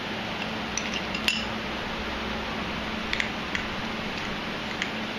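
A few light, sharp metal clicks and clinks as a long socket extension is handled inside a motorcycle fork tube, over a steady background hiss and low hum.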